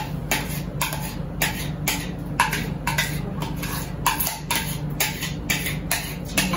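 Beating wet pancake ingredients in a bowl by hand: the utensil clicks against the bowl's sides about two or three times a second, unevenly, over a steady low hum.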